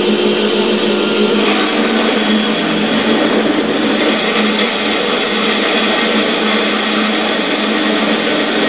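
Carolina horizontal band saw running and cutting through square metal tubing clamped in a V-block: a steady motor hum under the hiss and whine of the blade in the metal, which grows brighter about a second and a half in.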